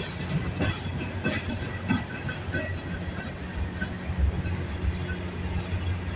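CN mixed freight train rolling slowly past: a steady low rumble with irregular wheel clicks and clanks from the cars.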